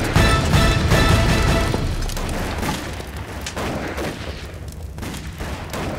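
Battle-scene soundtrack: dramatic score over gunfire and booming explosions. The music and rumble fade out after about two seconds, leaving scattered gunshots.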